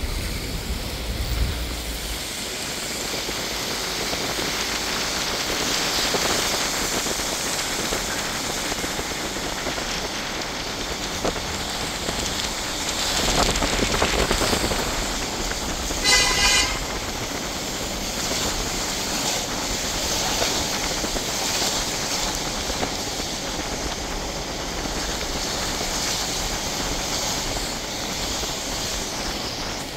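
Heavy rain and city street traffic: a steady hiss of rain and tyres on wet road, with a louder swell of a passing vehicle and a car horn honking briefly a little past halfway.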